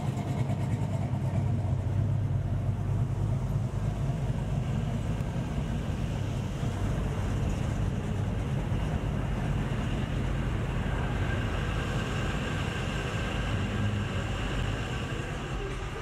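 Engine of an early-1950s Chevrolet pickup running at low speed as the truck rolls slowly past, a steady low rumble that eases slightly in the second half.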